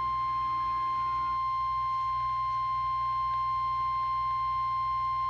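NOAA Weather Radio's 1050 Hz warning alarm tone: one steady, unbroken high beep, the attention signal that comes before a broadcast warning, here a special marine warning.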